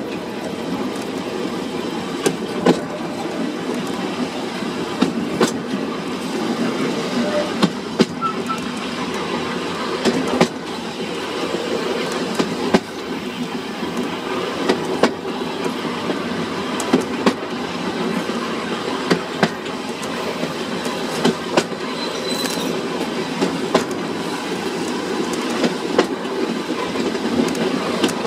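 Furka cogwheel steam train running along rack-rail track: a steady rumble from the moving train, with sharp clicks every second or two.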